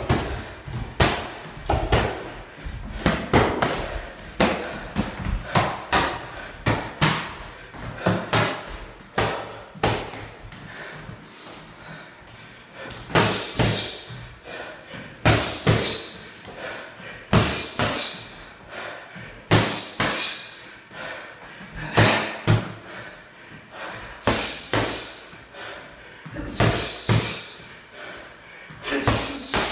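Boxing gloves smacking focus mitts, repeated sharp slaps in quick combinations. From about halfway through, the strikes come in bursts roughly every two seconds, each with a sharp hiss.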